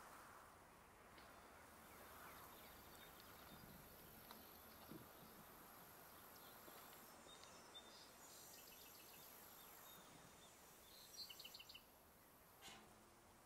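Near silence: faint outdoor ambience with a steady high hiss and soft, quick bird chirps in the second half.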